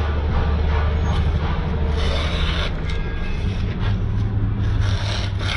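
Knife blade being sharpened against an abrasive: a rough rasping with louder stretches, over a steady low hum.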